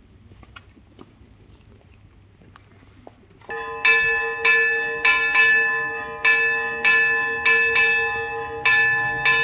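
Church bells start ringing about three and a half seconds in, struck in quick, uneven succession at about two strokes a second, each stroke ringing on. This is the festive peal for the arrival of the new bishop.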